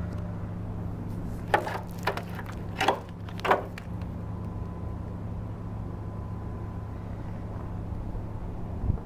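Honda B16B 1.6-litre DOHC VTEC four-cylinder engine idling steadily, with four short sharp knocks between about a second and a half and three and a half seconds in, and one more near the end.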